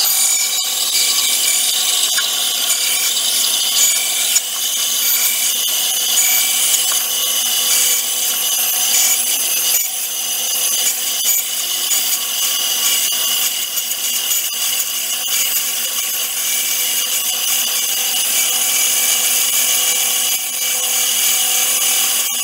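14-inch bandsaw running steadily while its blade cuts a small wooden disc, the blank turned on a circle-cutting jig.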